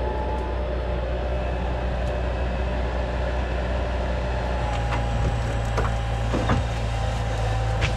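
Heavy diesel engine running steadily, with a few sharp knocks and creaks in the second half.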